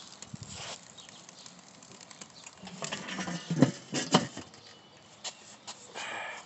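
Steel lid of a Weber Master-Touch kettle grill being put back on the bowl: two sharp metal clanks about three and a half and four seconds in, amid softer handling noises.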